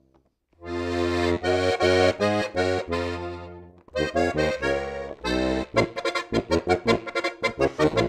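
Strasser Steirische Harmonika, a Styrian diatonic button accordion, played solo: full chords over deep bass notes starting after a brief pause, with a short break about four seconds in, then a run of fast, short staccato notes from about six seconds in.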